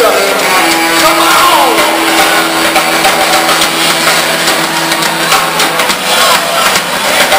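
Live blues-rock band playing loud: electric guitars, bass, drums and saxophone. A long held note sounds from about half a second in for around five seconds, with a few falling slides over it.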